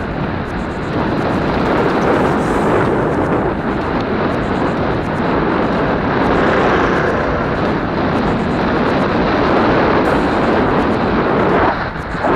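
Wind buffeting the microphone of a helmet-mounted action camera on a moving mountain bike: a loud, steady rushing noise with no clear pitch, easing for a moment near the end.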